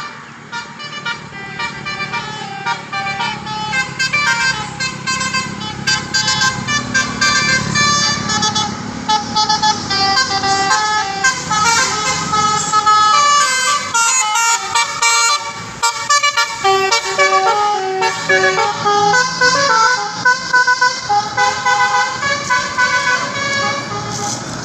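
Basuri telolet bus horns playing quick, shifting melodies of stepped notes, with a bus engine running underneath for the first half.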